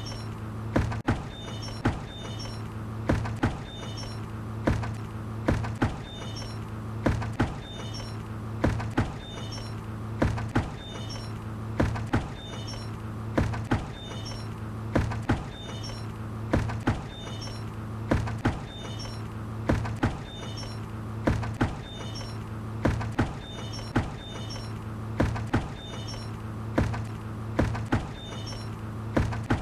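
A bucket creaking and knocking in a regular, repeating pattern of short clicks, over a steady low hum.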